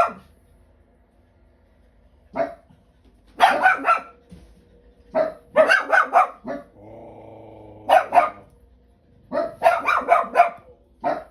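A dog barking angrily in volleys of several sharp barks, with short pauses between the volleys.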